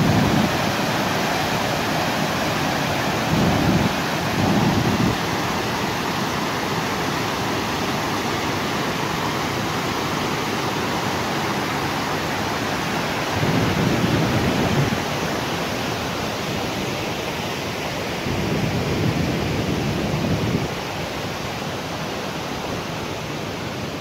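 Waterfall's steady rush of falling water, loud and close, with a few deeper surges swelling and fading.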